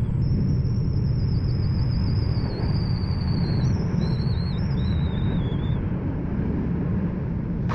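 FPV quadcopter motors whining, several high pitches wavering up and down, over a heavy steady rumble of wind.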